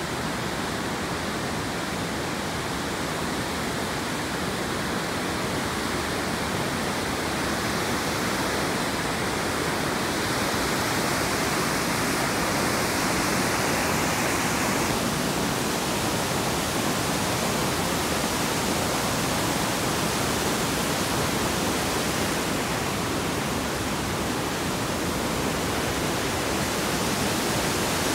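Waterfall rushing steadily, a dense even hiss of falling white water, a little louder from about ten seconds in.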